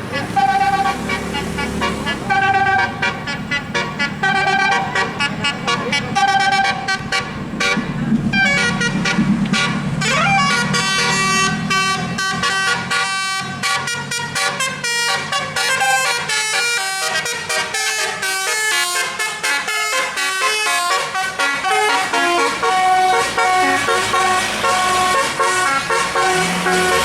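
A bus's telolet multi-tone horn plays a melody of quickly changing notes, faster toward the end. A bus engine runs low underneath for about the first half.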